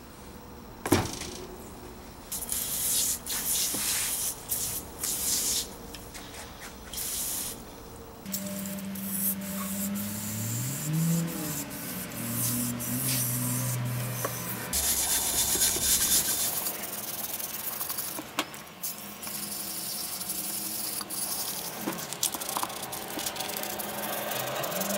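Short hissing bursts, then a longer steady hiss under a low hum that rises and falls in pitch, as a bottle jack base is cleaned and blasted. Near the end comes the scrubbing of a brush on the wet metal base.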